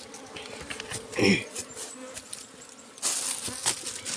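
Dwarf honey bees (ong ruồi) buzzing steadily at their nest in a rock hollow. Loud rustling and scraping starts about three seconds in, and there is a short vocal sound about a second in.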